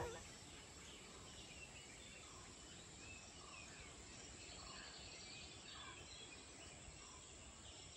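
Faint outdoor ambience with distant birds calling in short repeated notes, about one a second.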